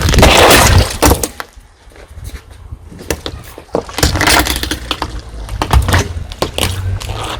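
Car tyre rolling over and crushing crunchy objects: a loud burst of crunching and cracking in the first second, then more crackling and snapping about four seconds in and again near the end, over a low rumble.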